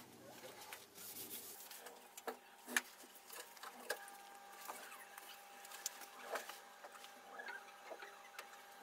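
Faint, scattered clicks and light knocks of steel gauge blocks being handled and set down on steel straight-edge guides, with one sharper click about three seconds in.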